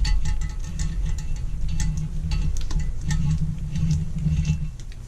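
Background music with a ticking, clock-like beat.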